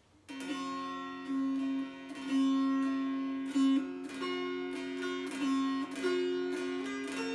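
An all-cherry mountain dulcimer with a black walnut fretboard overlay being strummed, starting about a quarter second in. It plays a tune whose changing melody notes ring over a steady low drone.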